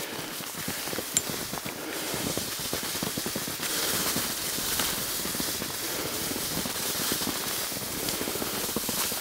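Touring skis running down a snow track: a continuous dense crackling scrape of the ski bases on the snow, a little louder a few seconds in.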